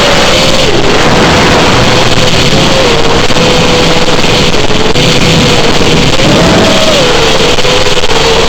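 FPV drone's electric motors whining over a loud rush of propeller and wind noise. The pitch drops about a second in, holds, then rises and falls again around six to seven seconds in as the throttle changes.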